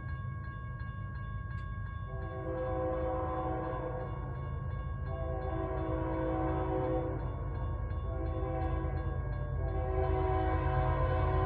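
Diesel locomotive air horn sounding the grade-crossing signal, two long blasts, a short one and a final long one, over the steady rumble of the moving train.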